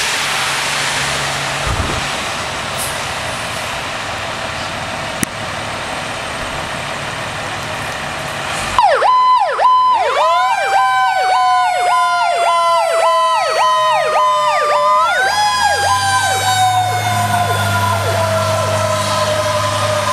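Steady hiss of rain on wet pavement, then about nine seconds in a fire siren starts suddenly. It is a fast rising-and-falling yelp about twice a second, laid over a slower tone that falls steadily, jumps back up and falls again. A low engine rumble joins near the end.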